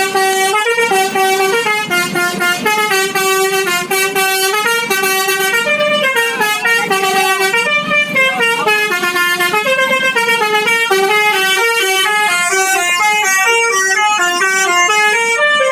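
Indonesian bus's 'telolet basuri' musical horn playing a melody: a continuous run of stepped horn notes, each held briefly before the next.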